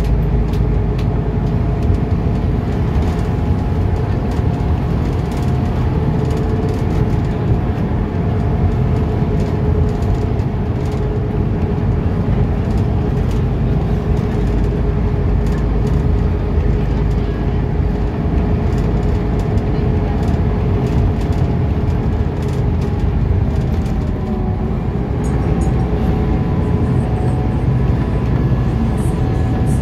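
Scania articulated bus heard from inside the cabin while under way: a steady low engine and road drone with a steady whine over it.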